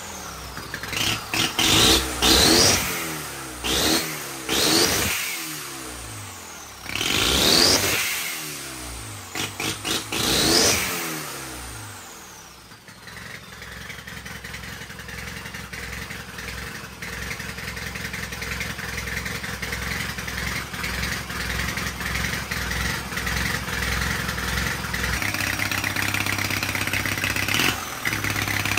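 Soviet flat-twin (boxer) motorcycle engine with twin turbochargers, blipped repeatedly with short rising revs for about the first twelve seconds. A whistle then falls in pitch as the engine drops to a steady idle, and it revs briefly again near the end.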